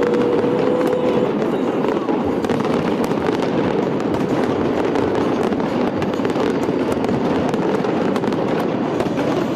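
Large fireworks display going off continuously: a dense, steady wash of bursts with many sharp crackles all through.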